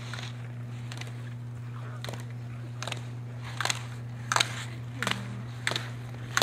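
A slalom ski racer turning through the gates: a short, sharp hit comes with each turn, about every three quarters of a second, and grows louder as the racer comes nearer. A steady low hum runs underneath.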